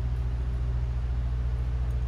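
A steady low hum with a fast, even pulse, like a motor or machine running.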